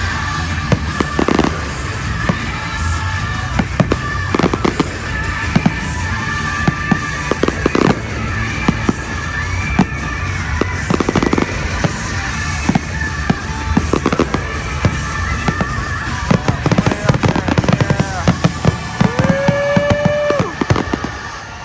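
Fireworks grand finale: a rapid barrage of aerial shell bursts and crackling, thickening into a dense volley near the end, over a show's music soundtrack.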